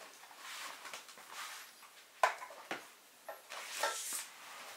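Handling noise from a person setting down a charger and getting up: soft rustling, a sharp light knock about two seconds in and another half a second later, then a brief rustle near the end.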